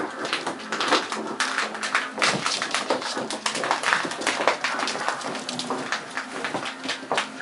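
Corgi puppies' claws clicking and scrabbling on a hardwood floor as they run and wrestle: a rapid, irregular patter of sharp taps.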